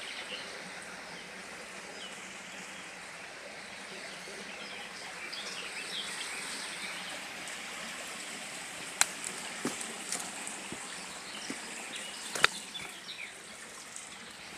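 Small river flowing and trickling steadily, with small birds chirping over it. A few sharp clicks cut through, the loudest about nine seconds in and again near twelve and a half seconds.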